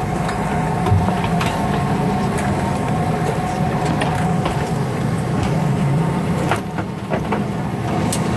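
Jet airliner's engines and cabin noise while taxiing on the ground: a steady low rumble with a thin steady whine over it, and a couple of light knocks.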